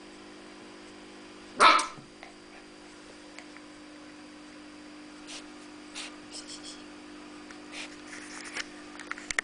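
Ten-week-old medium poodle puppy giving one short bark about a second and a half in, followed by a few faint clicks and rustles.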